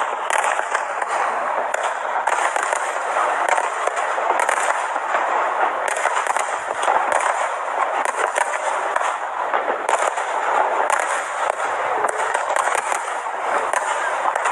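Fireworks display: a rapid, continuous barrage of bangs and crackles.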